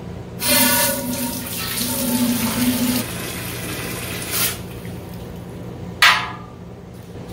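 Water pouring into a brew kettle for about four seconds, filling it to leak-test the newly mounted heating element. A single sharp knock follows about six seconds in.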